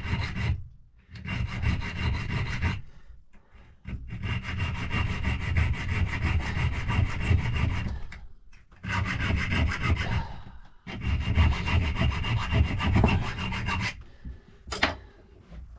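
Hand file rasping across a lever-lock key blank, cutting a step, in about five runs of quick strokes separated by short pauses. A brief click comes near the end.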